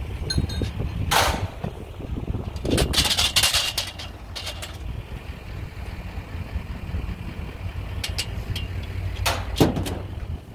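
Scattered sharp metallic knocks and clicks from tie-down straps and ratchets being worked on a car-hauler trailer while cars are strapped down, with a clatter about three seconds in and the loudest knock near the end. Under it, a steady low rumble of wind on the microphone.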